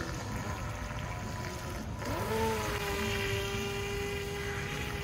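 Electric motor of an FT009 remote-control racing boat whining as the boat speeds across the water; about two seconds in the whine rises sharply in pitch, then holds steady.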